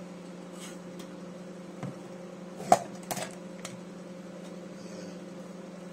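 A bowl lifted out of a microwave oven and set down on the kitchen worktop: one sharp clack a little under three seconds in, then a couple of lighter knocks, over a steady low hum.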